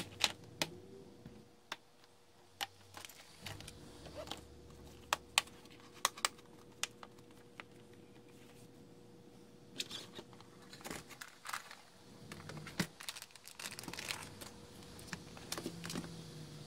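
Scattered sharp clicks and light taps of laptop parts being handled: a metal display hinge and the screen panel knocking and being set down. There is a stretch of rustling handling noise partway through, over a faint steady hum.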